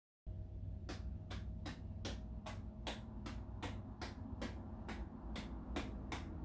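Hard-shelled light-up juggling ball tapping off the hands as it is bumbled back and forth, a sharp click about three times a second, starting just after a moment of silence.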